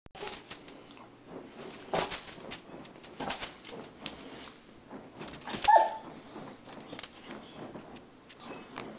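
Airedale terrier barking in short, loud, excited bursts while jumping around, set off by the pipes vibrating under the floor. A brief high whine comes about two-thirds of the way in.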